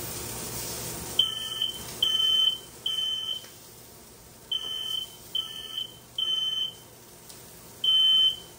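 Household smoke alarm sounding its three-beep pattern. Repeating groups of three short high-pitched beeps with a pause between groups start about a second in, set off by smoke from chicken grilling on the stovetop.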